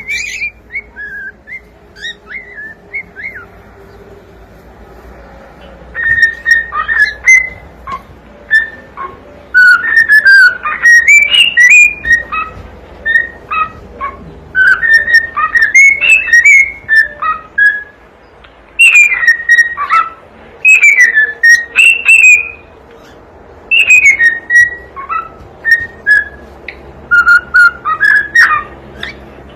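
Cockatiel whistling its song: phrases of rising and falling whistled notes with short gaps between them, soft for the first few seconds and much louder from about six seconds in.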